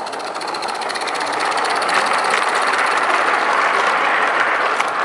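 Small live-steam garden-railway locomotive (16mm scale, 32mm gauge) chuffing rapidly, with its wagons and coach rolling over the rails; it grows louder over the first two seconds as the train comes up to and passes close by.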